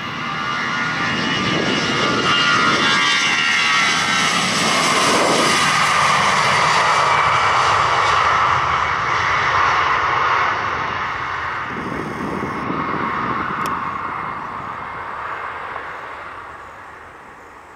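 Airbus A320's twin jet engines at takeoff thrust, a really loud roar that swells as the airliner rolls past on its takeoff run. It then fades away as the jet heads down the runway and rotates.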